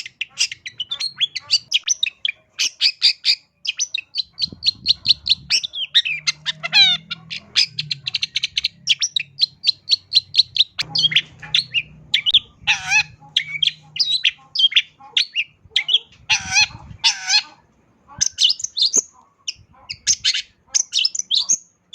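Long-tailed shrike (cendet) singing a long, varied song of rapid chirps, trills and sweeping notes, full of phrases borrowed from other birds.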